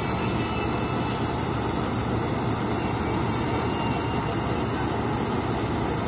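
Combine harvester's engine and machinery running steadily while its unloading auger discharges threshed paddy grain; the sound is loud and unchanging.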